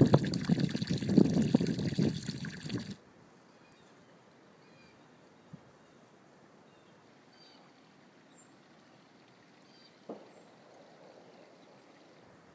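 Strong wind buffeting the microphone in a snow squall, cut off suddenly about three seconds in. After it comes a much quieter stretch of faint trickling stream water with a few faint, short high chirps, and a single knock about ten seconds in.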